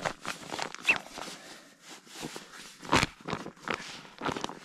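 Nylon fabric of an Exped pump bag rustling and crinkling in quick, irregular scrapes as it is handled and fitted to a sleeping mat's inflation valve, with one louder bump about three seconds in.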